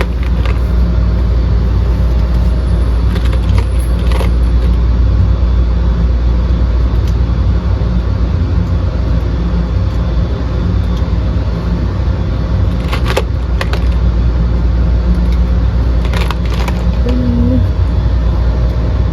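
A steady low rumble runs throughout, with a few sharp clicks or knocks over it: two close together about 13 seconds in and a couple more around 16 seconds.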